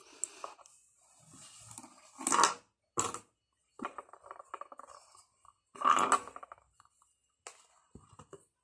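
A metal presser foot being fitted onto an industrial sewing machine: a few sharp metallic clicks and knocks, with light rustling between them.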